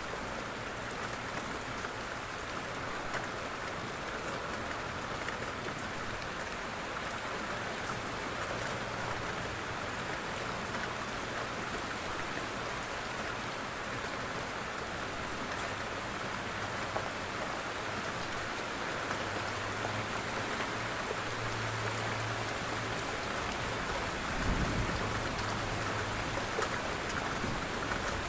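Steady heavy rain. A low rumble of distant thunder comes in during the second half, with a short low burst near the end.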